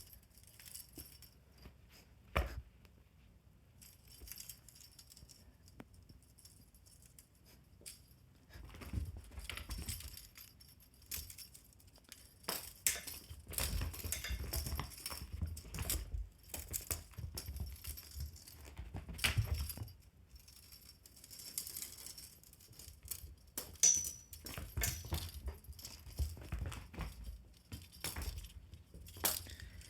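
Intermittent jingling and rattling of a fishing-rod pet teaser toy being swung and batted, mixed with soft thumps and scuffling of pets pouncing on it.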